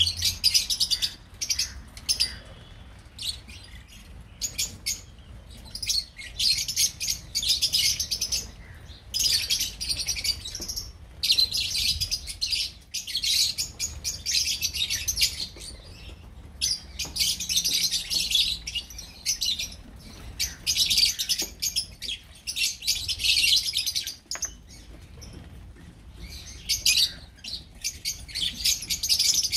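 A flock of lovebirds (Agapornis) chattering: shrill, high chirping in dense bouts a second or two long, with short breaks between.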